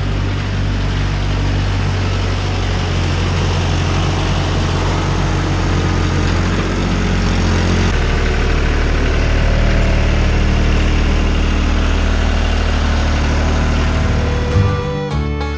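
Diesel tractor engine running steadily at a constant speed; its pitch shifts slightly about halfway through. Country-style music with guitar comes in near the end.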